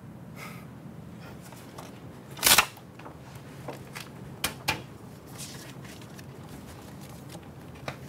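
Quiet room tone with a short thump about two and a half seconds in, followed by a few light taps and clicks.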